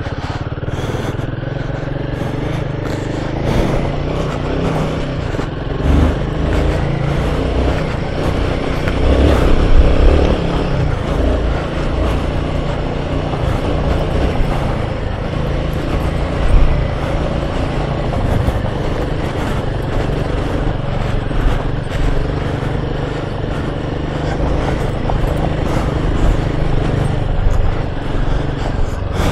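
Royal Enfield Himalayan 450's single-cylinder engine running steadily while riding a rough off-road trail, with scattered knocks and rattles over the bumps.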